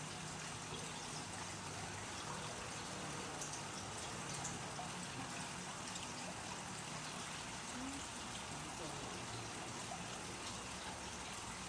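A faint, low voice murmuring over a steady hiss.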